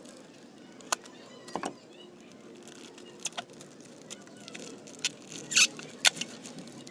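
Plastic fish bag handled and emptied into an aquarium: scattered short crinkles and clicks with a few water splashes and drips, the loudest about five and a half and six seconds in.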